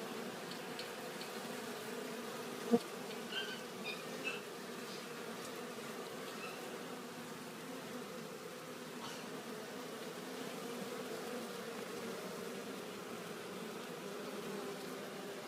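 Many western honeybees buzzing steadily in a dense hum at the hive entrance. A single sharp click comes a little under three seconds in, followed by a few lighter knocks over the next second and a half.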